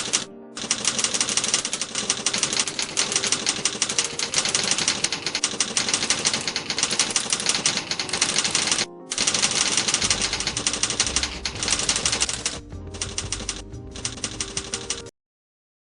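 Split-flap display paddles flipping in a fast, continuous clatter of clicks. The clatter breaks briefly twice, then turns choppy in short bursts and stops abruptly near the end. A low hum runs under the last few seconds.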